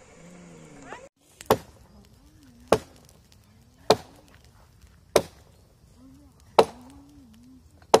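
An axe chopping into a dead log: six sharp strikes, about one every 1.2 seconds, starting about a second and a half in.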